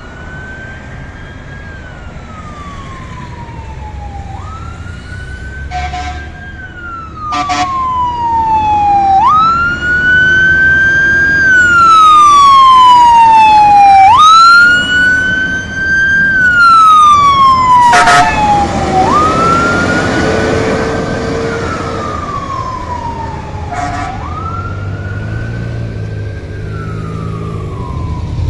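Fire ladder truck responding with its siren on wail: a quick rise, then a slow fall, repeating about every four and a half seconds, loudest as the truck passes midway. A second siren winds up twice while it is close, and air horn blasts sound twice about six seconds in, once more around eighteen seconds, and once near the end.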